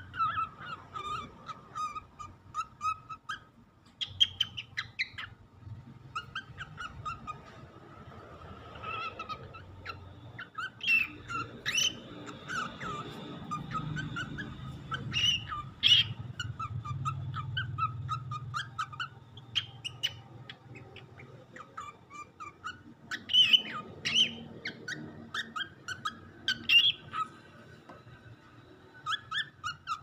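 Four-month-old lutino cockatiel singing: runs of short, quick chirping notes with brief pauses in between, mixed with a few sharp clicks.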